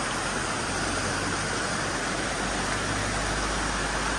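Shallow rocky stream rushing over stones and small cascades: a steady wash of water noise.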